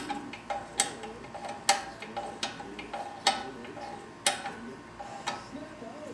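Sharp metallic clicks at an uneven pace of about one a second, with fainter taps between them: a wrench working the fittings as the hydraulic lines are tightened.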